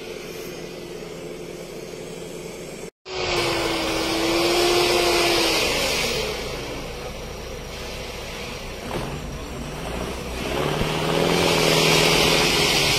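Pickup truck's engine revving under load as it ploughs through deep snow, with a steady hiss of spinning tyres and snow. After a brief dropout about three seconds in, the engine note falls away a couple of seconds later, then climbs again near the end.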